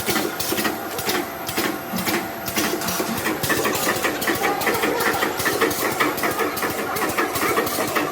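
Potato chip production line machinery running: a regular mechanical clatter over a steady hum, the clatter getting quicker about three seconds in.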